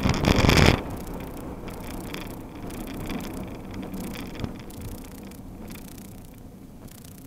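Road and engine noise inside a moving car, fading gradually as the car slows. A loud burst of noise fills the first second.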